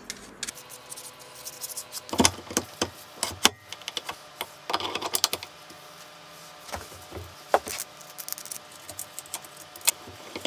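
Steel feed-handle rods clinking and knocking against each other and the bench drill's feed hub as they are fitted and screwed in by hand: irregular sharp metallic clicks and taps.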